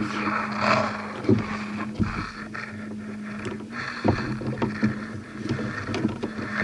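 Knocks, clicks and rubbing on a plastic fishing kayak's hull, with rustling as marsh grass brushes close by, over a steady low hum.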